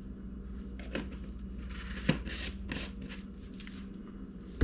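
Powdered egg cure being shaken from a plastic shaker jar onto salmon eggs in a metal tray: several short rustling, sifting shakes with a sharp tap about two seconds in.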